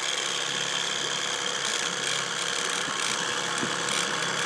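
Boat's outboard motor idling at trolling speed: a steady low hum with a faint high whine over it.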